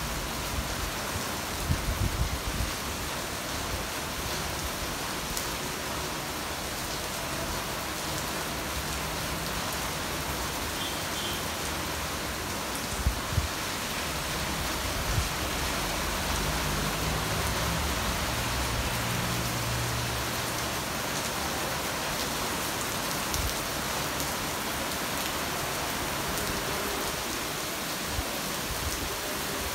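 Heavy monsoon rain falling steadily as a dense, even hiss. A few brief knocks stand out about two seconds in and again around the middle.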